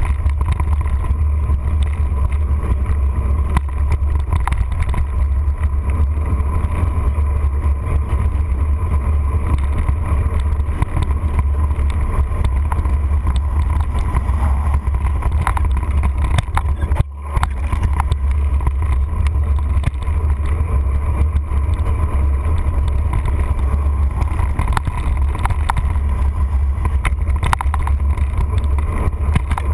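Mountain bike riding over a dirt singletrack, heard through a bike-mounted camera: a steady low wind rumble on the microphone with frequent small rattles and knocks from the trail. The level dips briefly about halfway through.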